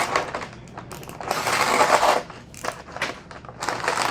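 A package being wrestled open by hand: irregular rustling, crinkling and scraping of packaging, with a longer burst just after a second in.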